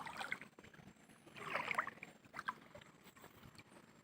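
Water sloshing and splashing in irregular swells, with a few small clicks; the loudest swell comes about one and a half to two seconds in.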